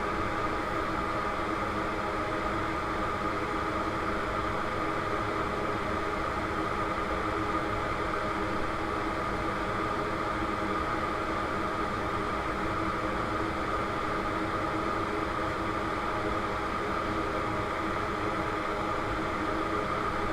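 Steady whir of a small electric fan with a constant hum, unchanging throughout.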